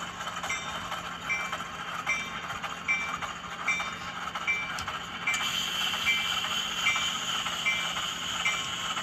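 Sound decoder in an HO-scale Baldwin VO-1000 switcher model playing the Baldwin 8VO diesel prime mover sound through its small speaker as the locomotive works, with a short light click about every three-quarters of a second. About five seconds in, the sound gets a little louder and hissier.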